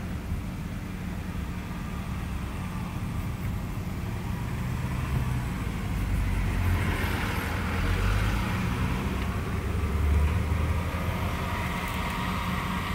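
Steady road and engine noise inside a moving vehicle's cabin. It grows louder for several seconds from about six seconds in as a fire engine passes close by, going the other way.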